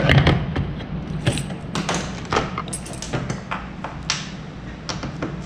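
Small metal hand tools and parts tapping and clinking on a workbench: a dozen or so sharp taps, some ringing briefly, over a low steady hum.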